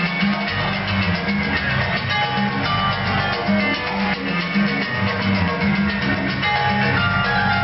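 Up-tempo dance music with guitar, bass and drums, a repeating bass line under a steady beat.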